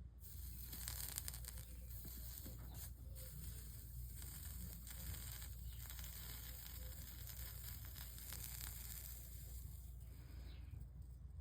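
Soldering iron melting solder into a flux-coated copper-foil seam of a Tiffany-style stained-glass panel, the flux sizzling and crackling faintly as the bead is laid, with a few brief breaks.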